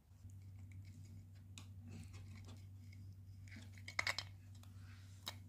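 Faint small clicks of a kitten licking and chewing at a catnip ball, over a steady low hum, with a couple of sharper clicks about four seconds in and another near the end.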